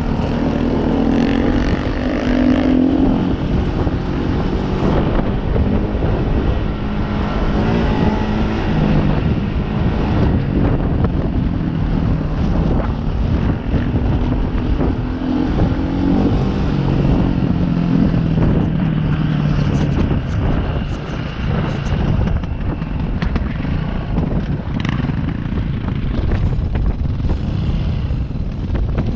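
Dirt bike engine running under changing throttle, its pitch rising and falling, over a continuous rush of noise, with scattered knocks in the second half as the bike crosses rough ground.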